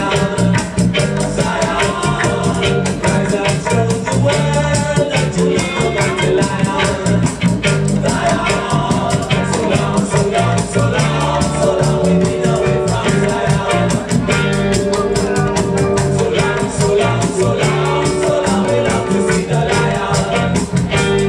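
Roots reggae record playing loud over a sound system, with a heavy bass line, a steady drum beat with fast hi-hats, and a sung vocal.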